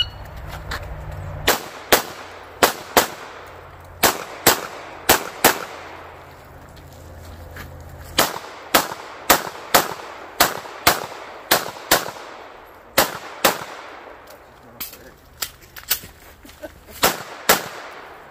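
Handgun firing a course of fire: about thirty sharp shots, the first about a second and a half in, many in quick pairs, fired in strings with short pauses as the shooter moves between positions.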